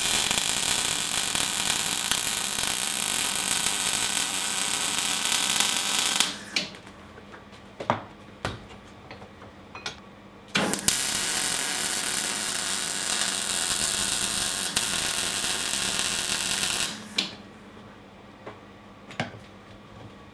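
MIG welding arc crackling steadily in two runs of about six seconds each, with a few sharp clicks in the pause between them and one more near the end.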